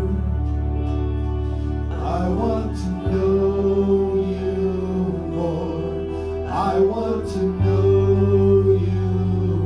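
Slow worship music: held chords over a low bass note that changes about three seconds in and again near the end, with two brief wordless vocal phrases between the sung lines.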